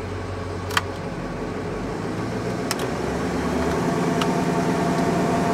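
Ford F-450 diesel engine idling high in the first seconds after a jump-start, heard from inside the cab. A few sharp clicks come through over it.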